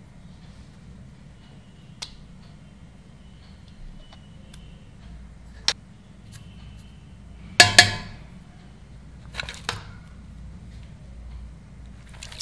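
Metal bowls and a metal plate tapping and clinking against a metal pressure cooker as ingredients are tipped in. There are scattered single taps, a louder pair of ringing clinks a little past halfway, and a few more taps near the end.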